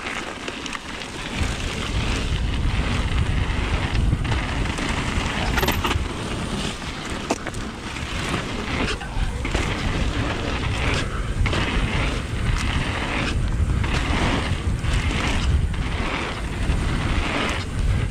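Mountain bike tyres rolling fast over a gravel trail, with heavy wind buffeting on the microphone and a few sharp clicks from the bike. It grows louder about a second and a half in.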